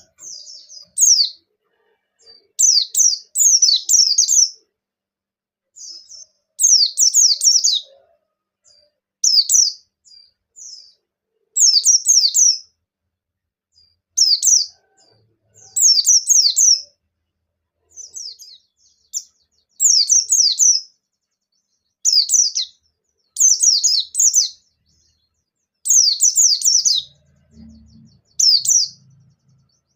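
A pleci (white-eye) of the bustomi type singing in full voice. It gives short phrases of rapid, high-pitched, down-slurred notes, one every second or two.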